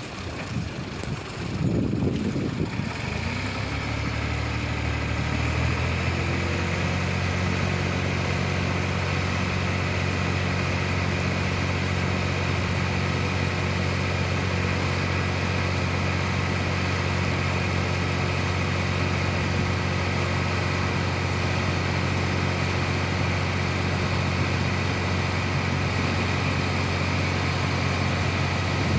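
Diesel farm tractor engine rising in pitch over the first few seconds, then running steadily at raised revs to power the hydraulic tipping trolley as the load of soil is lifted.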